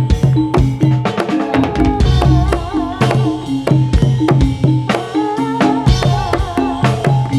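Live Javanese gedrug music: a dense, steady pattern of drum and percussion strikes under sustained pitched tones, with a wavering high melody line entering about two seconds in.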